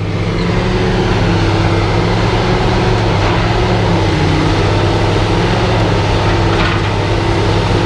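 Heavy engine running at a steady speed, a deep unchanging drone.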